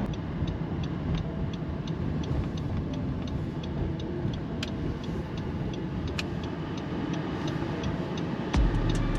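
A vehicle running, heard as a steady rumble, with a light regular ticking of about three a second and a low thump near the end.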